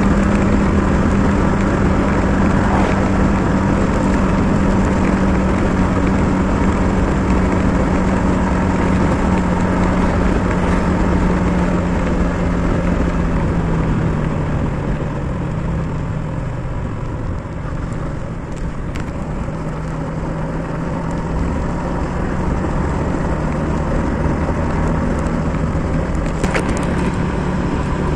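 Motorcycle engine running at a steady cruise over a constant rush of wind and road noise. The engine note drops slightly about halfway through, then holds steady.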